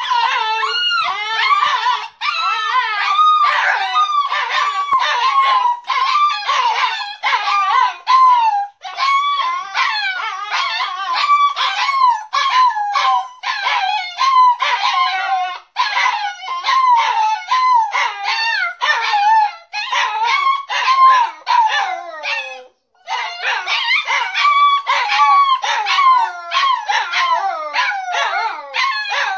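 Two puppies whining and crying almost without pause, high wavering cries that rise and fall and often overlap: heavy begging for attention.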